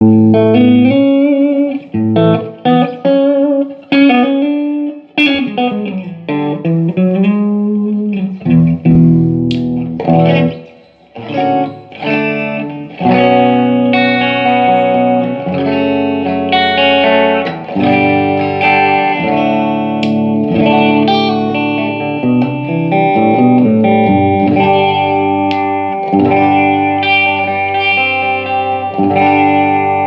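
Overdriven electric guitar played through a Laney IRT30 amp, being tested after its effects-loop switch was replaced. Picked notes and bends come first, with a short gap about eleven seconds in, then sustained distorted chords.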